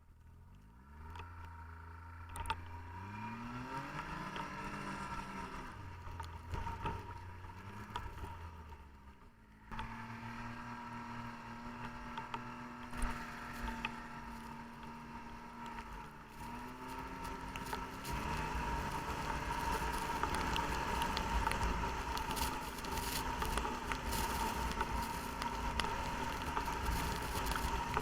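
Snowmobile engine revving up and down a few times, then running at a steady pitch. About two-thirds of the way in it picks up speed, and a louder rushing noise joins it.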